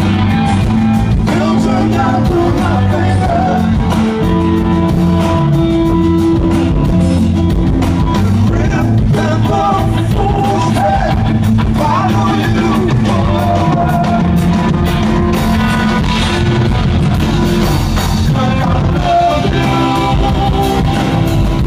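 A live rock band playing loudly: electric guitar and bass over drums, with a man singing.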